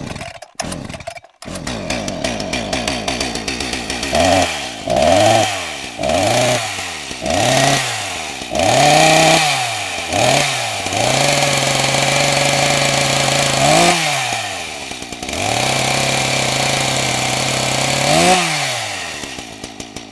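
Petrol chainsaw: a few sharp bursts in the first second or so, then idling, then revved in about six short blips of throttle. It is held at high revs for a few seconds, drops back, is held high again, and falls back to idle near the end.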